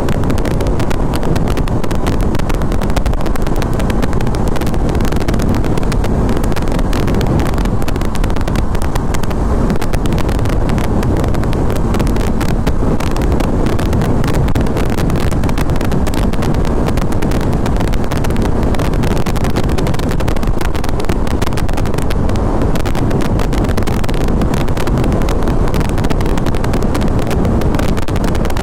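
Sport motorcycle cruising at highway speed: a steady rush of wind on the microphone, with engine and road noise underneath.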